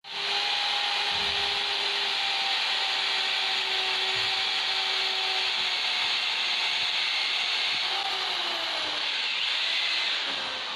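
Corded electric drill running continuously while it bores into hardwood stair wood, its motor pitch sagging slightly near the end.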